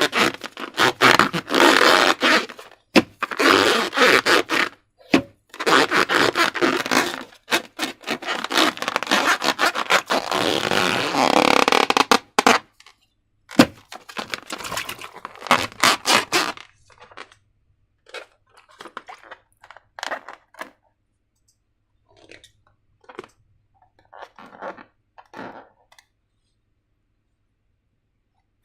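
Slime being squished and stretched by hand: dense, sticky crackling and squelching for most of the first sixteen seconds, then only occasional short, soft squelches.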